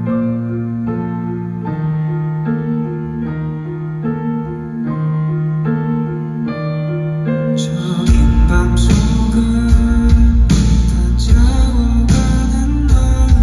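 Live band music: a keyboard plays repeated sustained chords, and about eight seconds in the drums and bass come in and the music gets louder.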